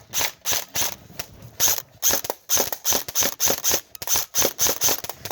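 Airsoft gun firing a rapid string of single shots, about three to four a second, with a short break about a second in.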